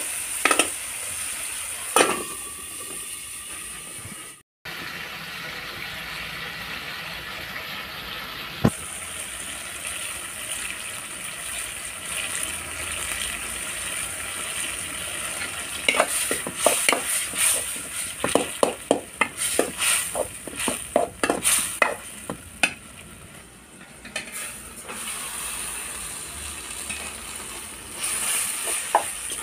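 Tomatoes frying and sizzling in an aluminium kadai, with a metal spoon scraping and clinking against the pan as they are stirred. The clinks come thickest in the second half. The sound cuts out for a moment about four seconds in.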